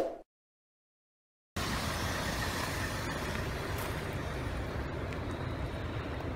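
A short chime dies away at the very start, then after a second and a half of dead silence a steady outdoor background rumble with hiss sets in and runs on evenly.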